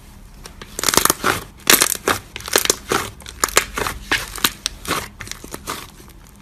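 Fingers pressing and kneading a soft clay slime, making a quick, irregular run of sticky crackles and pops that starts about a second in and thins out near the end.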